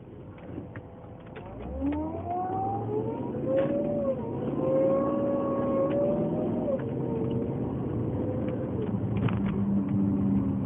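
2007 Volvo S80 4.2 V8 with a whirring whine, sounds like a Formula 1 car, that climbs in pitch about two seconds in, wavers, and drops away near the end over the engine's steady low hum. The owner says it is worse when cold and louder on acceleration and turning; its cause is unknown.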